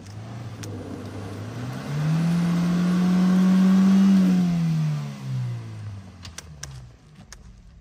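Honda Fit's four-cylinder petrol engine revved hard against the ruts. About two seconds in the revs climb and hold high for a couple of seconds, then drop back and die away. The front wheels are spinning in the mud and smoking without the car making headway.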